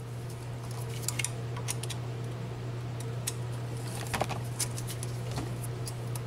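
Light metal clicks and clinks as a steel spring clip is worked and popped into place on a brake caliper with a hand tool, over a steady low hum.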